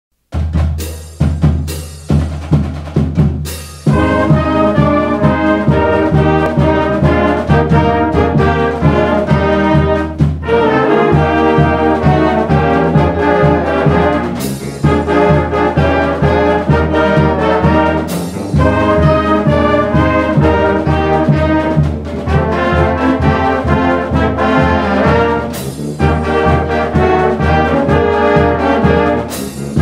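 High school band playing its school fight song, with trumpets and trombones over drums and a steady low bass. It opens with several separate accented chords, and the full band plays on from about four seconds in.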